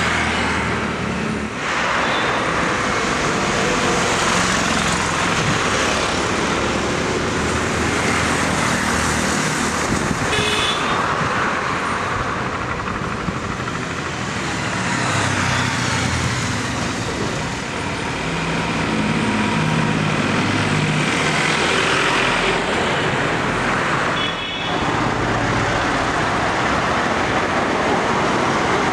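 Road traffic noise: the engines of cars, motorcycles, scooters and a lorry passing close by, with short horn toots.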